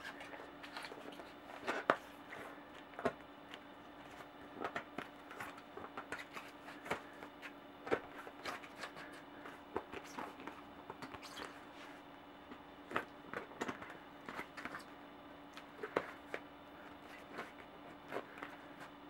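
Maxxis Raze cyclocross tire being worked onto a Velocity A23 rim by hand and with a plastic tire lever: irregular clicks and short scrapes of the rubber bead going over the rim edge, several a second.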